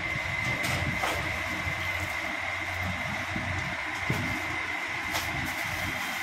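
Steady machine-like background hum with a constant high-pitched whine running through it, and a few faint clicks.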